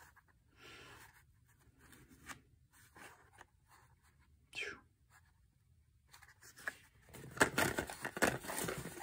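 Hands rummaging through small parts and packets in a tool caddy: faint scattered rustles and clicks at first, then louder, busier crinkling of packaging from about seven seconds in.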